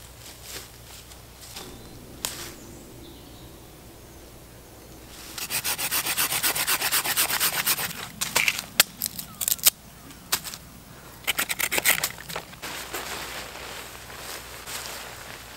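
Quick, even back-and-forth rasping strokes on a green wooden stick, in two runs, with a few sharp, loud knocks or snaps between them; faint rustling in dry leaves before and after.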